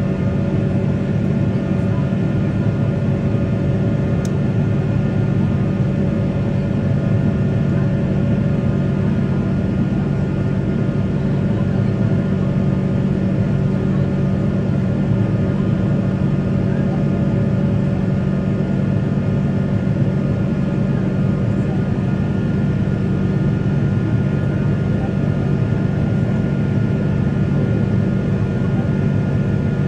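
Steady cabin drone of a Boeing 777-300 climbing after takeoff, heard from inside the cabin: a deep, even hum with several steady tones over it. A faint tick is heard about four seconds in.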